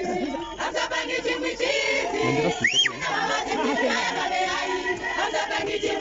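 A crowd of demonstrators singing and chanting together, many voices at once. About halfway through, a short high-pitched sweep rises and falls above the voices.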